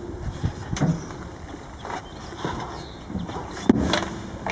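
A few scattered metal knocks and clanks from handling a tractor PTO driveshaft against the tractor's rear, the sharpest knock near the end with a brief metallic ring.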